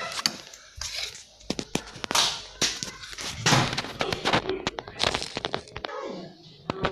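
A quick, irregular series of sharp knocks and clatters with swishing noises in between.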